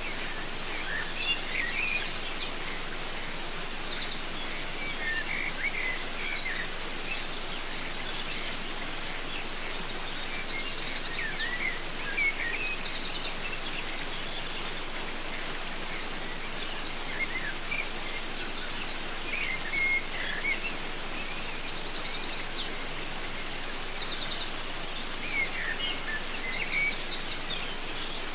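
Steady rush of a waterfall under bird song: phrases of chirps and quick high trills, repeated four times with pauses between.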